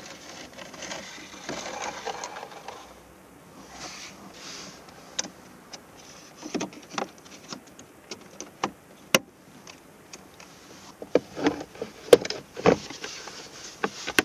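Hands fitting a car's cabin air filter: rustling, then a run of sharp plastic clicks and knocks, busiest near the end.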